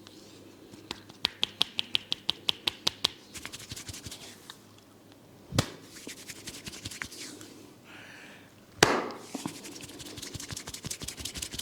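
Barber's hands working a head massage with hair cracking: a quick run of sharp clicks, about five a second for two seconds, then fainter rapid crackling. Single loud cracks come about halfway and again about three quarters in, the second the loudest, and fast fine crackling follows.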